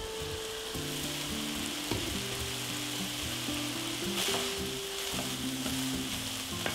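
Ground turkey and onion frying in a skillet with a steady sizzle, stirred with a wooden spoon.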